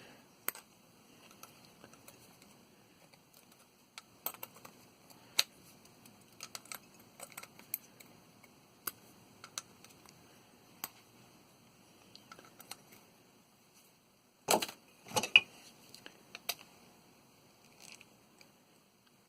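Scattered light clicks and clinks of small metal parts from a water heater pressure relief valve being handled and taken apart, with two louder brief scrapes about three-quarters of the way through.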